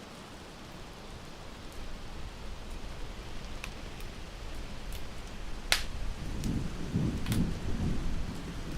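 Steady rain with a low rumble of thunder that builds and swells near the end. Sharp crackles and pops from a wood fire break through a few times, the loudest one about two-thirds of the way in.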